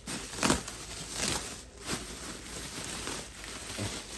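Bubble wrap and plastic sheeting crinkling and rustling as hands pull it back, in irregular crackly bursts that are loudest in the first second and a half.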